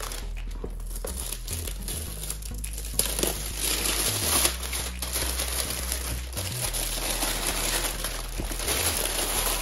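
Plastic shrink-wrap being torn and peeled off a boxed book set, a continuous loud crinkling with a couple of sharper crackles around the middle.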